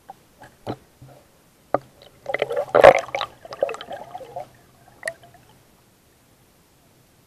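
Underwater sound picked up through an action camera's waterproof housing: scattered sharp clicks and knocks, and a gurgling stretch of water about two to four and a half seconds in, the loudest part. A faint low hum runs under it.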